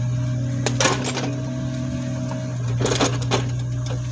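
Knife blade scraping and cutting the skin of a green papaya in a few short, sharp strokes, in two clusters, over a steady low hum.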